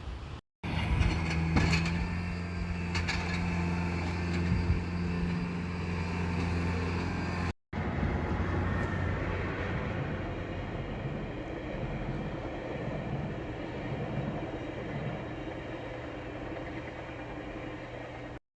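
Snowstorm wind rushing steadily. For the first few seconds a steady low mechanical hum with a few clicks sits under it, then after a cut there is only the even rush of the wind.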